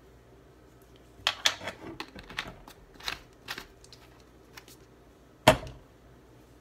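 Light clicks and taps for about two and a half seconds as a plastic bag of powdered sugar is handled over a stainless steel bowl, then one sharp knock near the end.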